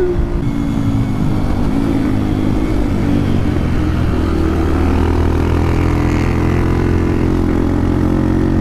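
Beta RR 125 Motard 4T's single-cylinder four-stroke engine, fitted with an aftermarket exhaust, running under way on the road. Its pitch drops over the first second or two, then holds steady.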